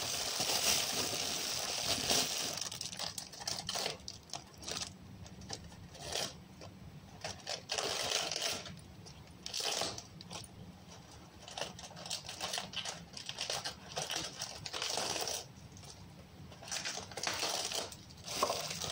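Clear plastic bag crinkling as a head of lettuce is pulled out, then lettuce leaves being torn off by hand in irregular crisp bursts of crackling and snapping.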